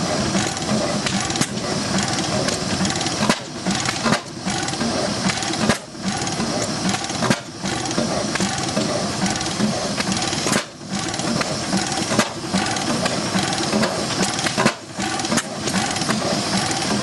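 Large antique single-cylinder horizontal stationary engine with heavy twin flywheels running: a steady metallic clatter with a beat of about four a second, dipping briefly every second or two.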